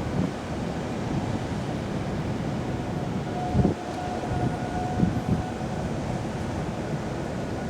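Wind buffeting the microphone over the steady roar of heavy post-typhoon surf, with low gusts thumping a few times midway. A faint steady tone sounds for about two seconds in the middle.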